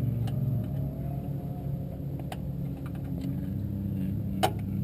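A vehicle engine idling steadily, with a few light clicks and one sharp click about four and a half seconds in.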